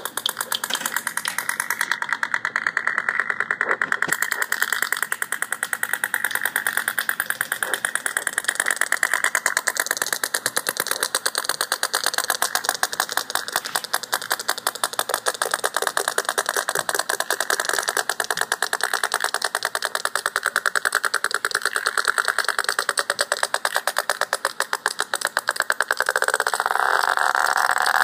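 Sperm whale echolocation clicks picked up by a hydrophone: a rapid, continuous train of sharp clicks from several whales overlapping, with a faint steady hum underneath. The clicking grows louder near the end.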